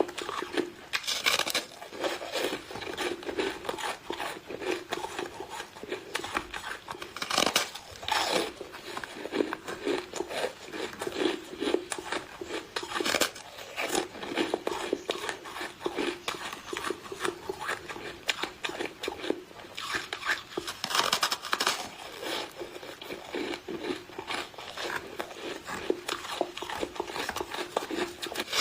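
Close-miked crunching and chewing of snow foam, a dense crackly crunch that goes on without a break, with a few louder crisp bites every several seconds.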